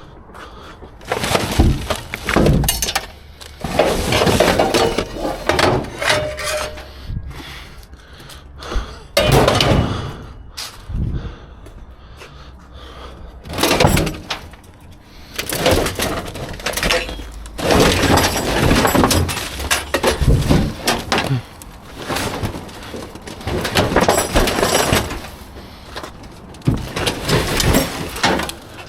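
Junk and scrap being handled in a dumpster: a long run of irregular clattering, banging and breaking as items are pulled out, thrown and broken apart.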